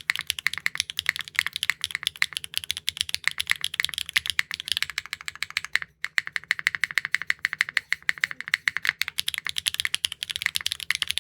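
Fast typing on a Neo65 Core Plus mechanical keyboard fitted with HMX linear switches with P7 nylon bottom housings, an aluminum plate, no foam and GMK keycaps: a dense, rapid run of keystrokes with a brief pause about six seconds in.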